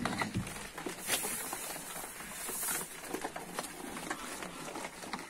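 Several piglets eating scattered dry corn kernels off the floor: an irregular patter of many small crunches and clicks as they chew and nose through the grain.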